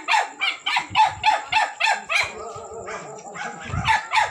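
A dog barking rapidly and repeatedly, about three or four barks a second, breaking off for about a second past the middle before starting again. A steady high thin tone runs underneath, and a brief low rumble comes near the end.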